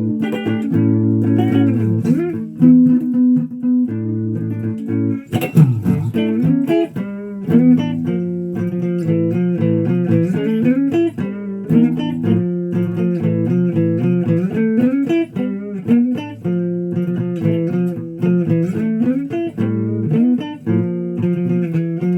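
Guitar playing: plucked notes and held chords, with many notes sliding up and down in pitch.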